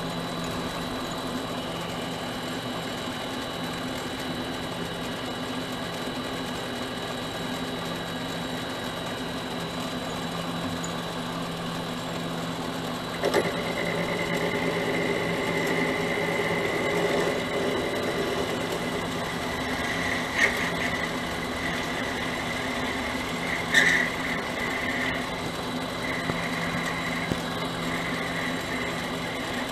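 Mini lathe running steadily, its motor humming with a high whine and the spindle at about 550 RPM. About halfway through there is a knock, and then a high, steady tone joins as the tool cuts into the brass hex stock. Two sharp clicks come later.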